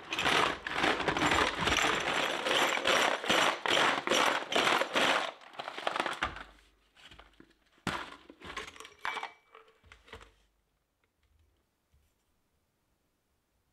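Stones and a steel axe head rattle and grind inside a plastic tub as it is rolled across a wooden workbench, giving the axe head a stonewash finish. The dense rattling stops about five seconds in. It is followed by a few scattered knocks and clatters as the tub is stood upright and opened.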